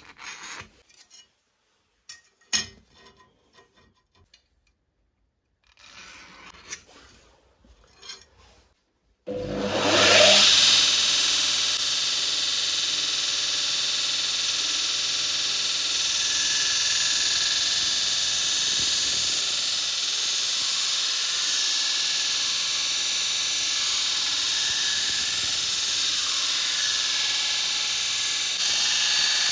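A few short scraping strokes of a file along the edge of a thin steel saw-blade knife blank, then about nine seconds in a belt grinder starts up, its pitch briefly rising, and runs steadily, grinding the bevel on the steel blade.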